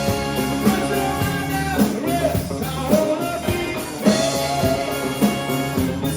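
Band playing a rock cover with a sung lead vocal over guitar and a steady drum beat.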